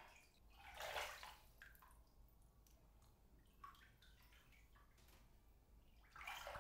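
Water in a bathtub dripping and sloshing: two soft splashing washes, about a second in and near the end, with single drips falling in between.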